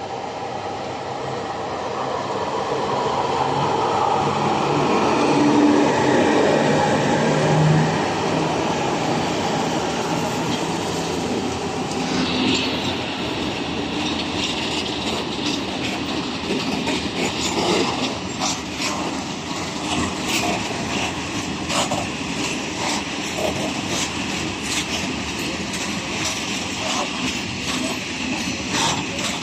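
Electric freight locomotive of the JŽ 461 class pulling out with a freight train, its running hum loudest about six to eight seconds in as it passes. Then the freight wagons roll by, their wheels clicking rapidly over rail joints.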